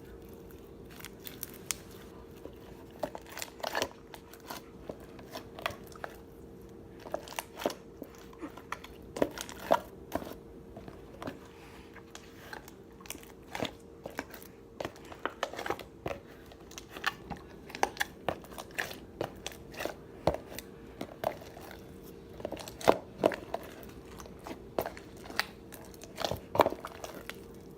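Slime being squished and poked by hand, making irregular small clicks and pops, several a second. A faint steady hum runs underneath.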